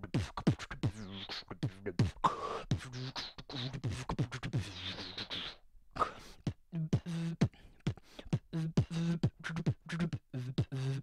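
Freestyle beatboxing: quick mouth clicks and kick-drum pops over a hummed bass line, with hissing hi-hat sounds through the first half and a brief break about halfway through.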